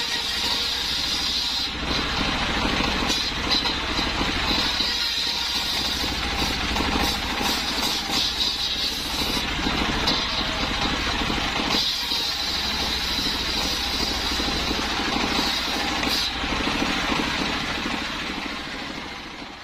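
Belt-driven circular saw bench ripping sengon (albasia) planks. The engine runs steadily with a fast low chugging under the high whine of the blade cutting wood, and the whine drops out briefly twice, between cuts. The sound fades out near the end.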